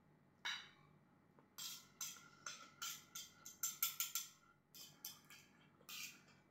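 Eating sounds: a quick, irregular run of about a dozen sharp clicks and smacks as someone eats noodles with a metal spoon and fork from a plate, thickest in the middle of the stretch.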